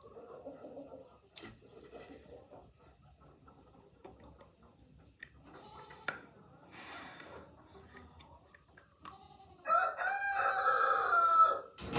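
A rooster crows once near the end, a loud call lasting about two seconds; before it there are only faint, scattered small sounds.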